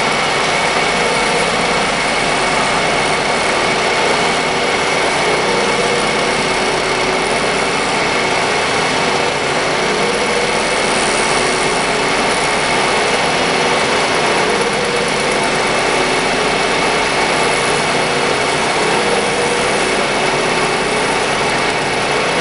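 Milling machine's cutter taking a light pass across a laminated steel block, just touching the steel: a steady machining noise with a steady high whine.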